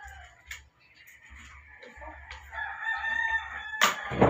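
A rooster crowing: the tail of one call at the start, then one long call from about halfway in. Near the end comes a sharp knock with a dull thump just after.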